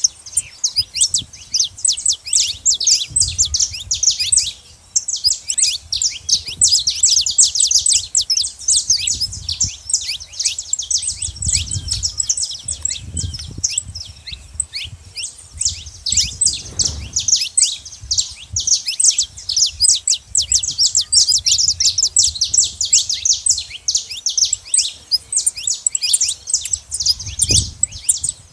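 A flock of saffron finches chirping and calling at a feeding spot, a dense, continuous chatter of rapid high, falling chirps with only a brief lull about four seconds in. A low rumble comes and goes underneath.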